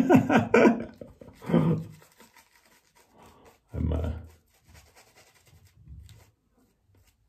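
A man laughing, loudest in the first second, then two shorter breathy bursts of laughter about a second and a half and four seconds in. After that it is quiet except for faint soft rubbing sounds.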